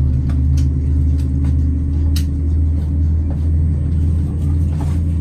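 Cabin noise of a Boeing 787-9 taxiing: a steady low drone from the running engines and cabin air, with a few light clicks and rattles over it.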